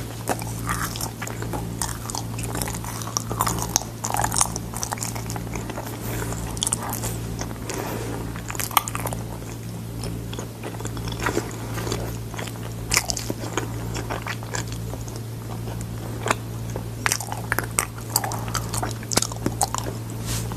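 A person chewing and biting food, with irregular crunches and mouth-smacking clicks, over a steady low hum.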